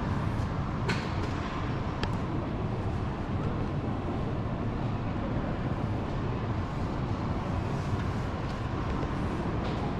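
Toyota RAV4 on the move: steady road and running noise with a deep rumble, broken by two short clicks about one and two seconds in.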